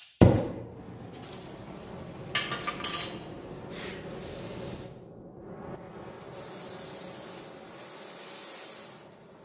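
Oxy-fuel cutting torch being lit and adjusted: a sharp knock right at the start and a few quick clicks about two and a half seconds in, over the hiss of gas. From about six seconds in the hiss grows louder and higher as the flame is adjusted, then eases near the end.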